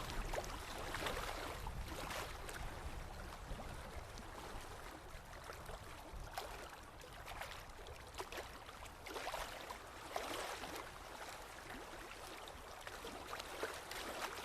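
Forest river and small waterfall, water rushing and splashing without a break. The noise swells every few seconds, over a steady low rumble.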